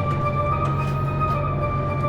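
Background music: held notes over a steady low bass note, with no speech.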